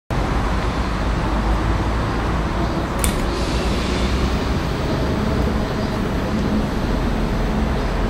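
Steady low outdoor rumble, with a single short click about three seconds in.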